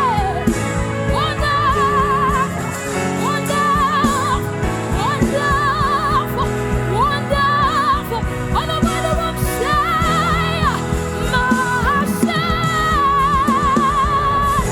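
Live gospel worship music: a solo voice holds long notes with a wide vibrato, sliding up into several of them, over steady band accompaniment.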